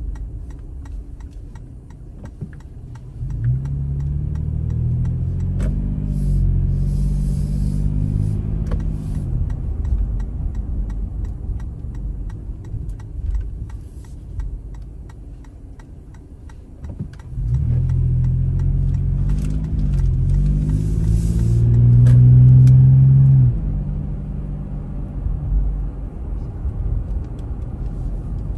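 Car engine pulling away twice from a stop, its pitch climbing as it accelerates each time, with low road rumble in between.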